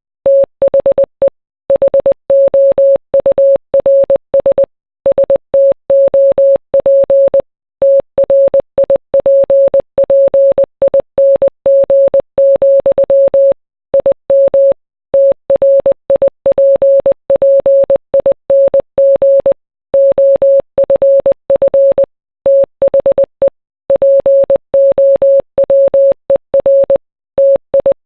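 Morse code sent as a single steady beep a little above 500 Hz, keyed rapidly into short and long pulses with brief silent gaps between letters and words, spelling out song lyrics.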